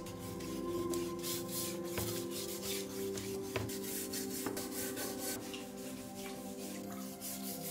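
Wire brush scrubbing a rusty steel kitchen knife blade in a tub of water, in quick scratchy back-and-forth strokes with a few sharp taps. Soft background music runs underneath.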